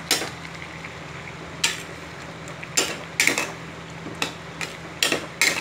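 A flat metal spatula stirring a wet spinach-and-paneer mixture in a stainless steel pot, scraping and clinking against the pot's side and bottom about eight times at an uneven pace. A steady low hum runs underneath.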